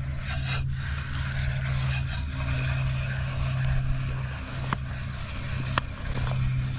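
Boat's outboard motor running steadily at low speed, a constant low drone, with two sharp ticks in the second half.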